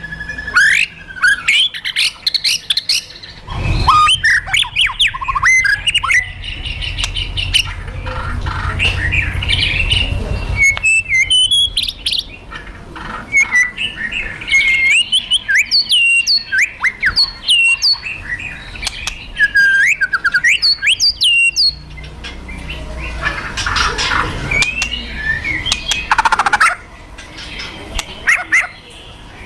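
White-rumped shama (murai batu) singing in an agitated, fighting mood: rapid dry rattling clicks (kretekan) broken by loud, sharp whistled notes that sweep steeply in pitch, with a run of quickly repeated falling notes in the middle.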